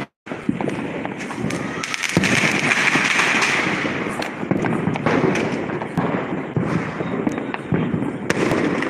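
Many Diwali firecrackers and fireworks going off across the neighbourhood: an unbroken, irregular crackle of pops and bangs, with a hissing rush swelling about two seconds in.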